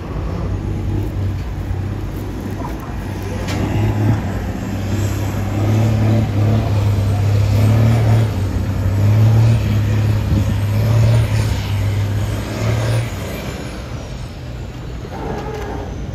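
An engine running with a steady low hum that builds up over several seconds and drops away about thirteen seconds in.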